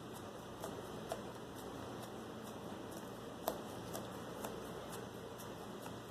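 Slime being handled, giving small scattered clicks and pops over a steady hiss, the sharpest about three and a half seconds in.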